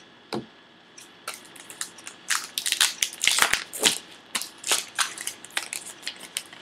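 A trading-card pack wrapper being torn open and crinkled by hand, a rapid run of crackling rustles that is loudest in the middle, after a light tap near the start.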